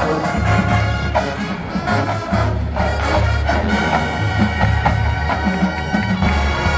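Collegiate marching band playing a Motown arrangement: full brass ensemble with trumpets and trombones over heavy low brass and drum hits.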